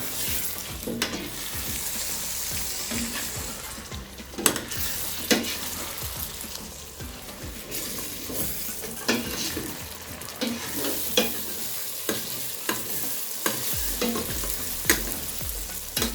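Egg stew sizzling in a pot over low heat, with a spoon stirring it and clicking against the pot now and then.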